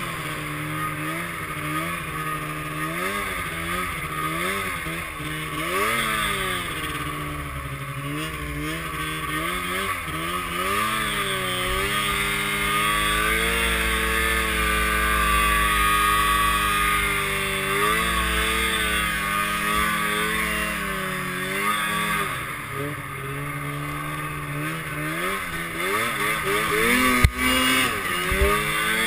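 Arctic Cat M7 snowmobile's two-stroke engine revving up and down repeatedly as it churns through deep powder, then holding a steadier pitch for a while. One sharp knock near the end.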